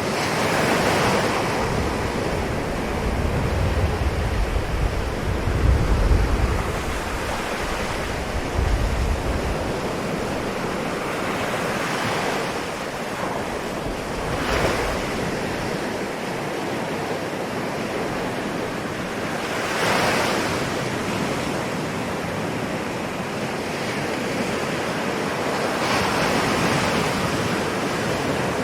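Ocean waves washing onto a shore, a wave surging in every several seconds over a constant wash of surf. A deep rumble of wind on the microphone comes in a few seconds in and lasts about six seconds.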